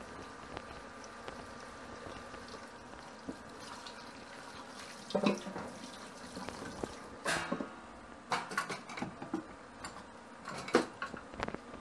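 Kitchen tap running into a stainless steel sink while a wooden cutting board is washed, with several sharp knocks of the board against the sink in the second half.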